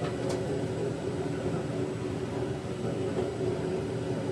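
Foundry furnace burner running steadily, a continuous rumble, holding a crucible of bronze molten. One short click just after the start.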